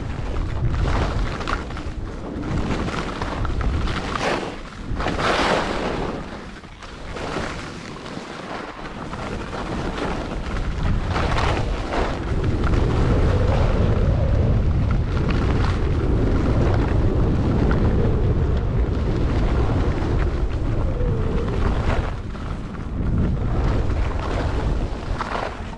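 Wind rumbling on the microphone as a skier travels at speed down a groomed run, with the hiss of skis scraping and carving on packed snow through the turns, the loudest scrapes about 5 s and 11 s in.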